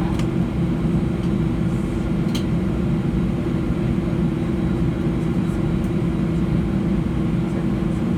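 Steady cabin drone inside an Airbus A320-200, a constant hum over a low rumble, with a couple of faint clicks.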